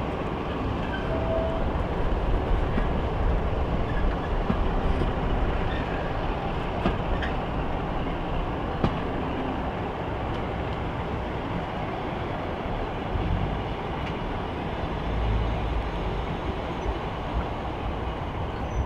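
Warship-class diesel-hydraulic D821, with its Maybach MD650 engines, under power as it pulls a train of coaches out of the station. It runs as a steady rumble mixed with the rolling of the coaches' wheels on the track.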